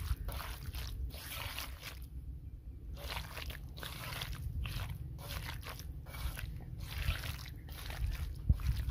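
A bare hand squeezing and kneading boneless chicken pieces through a thick yogurt-and-spice marinade in a clay bowl: wet squishing and squelching in quick repeated strokes, about two a second, with a pause about two seconds in.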